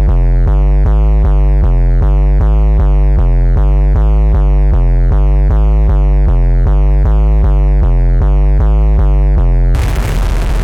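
Electronic two-tone buzz-siren sound effect: a loud, low, harsh buzz that switches back and forth between two pitches about four times a second, then cuts off suddenly near the end and gives way to a loud rushing noise.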